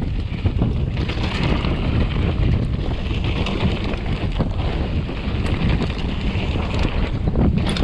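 Wind rushing over an action camera's microphone while a mountain bike rolls fast down a rough dirt trail, with a steady low rumble and frequent short knocks and rattles from the bike over the terrain; a sharper clack comes near the end.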